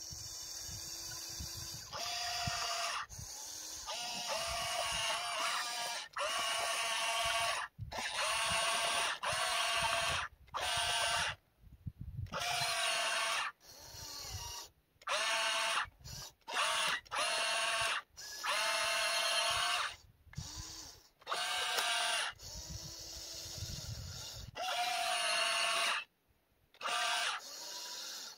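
Radio-controlled excavator's electric motors whining in stop-start runs of one to three seconds as the boom and blade are worked, with short pauses between runs.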